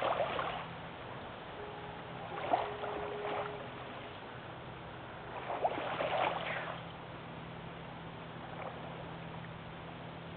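Small waves lapping on a sandy shore in three short bursts, over a steady low hum. A faint foghorn tone is held for about two seconds, a couple of seconds in.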